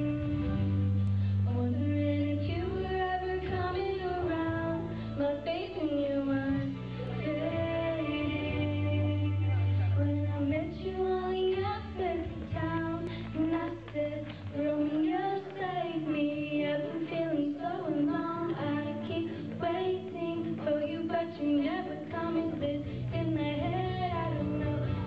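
A young girl singing a song solo into a microphone over instrumental accompaniment with low sustained bass notes.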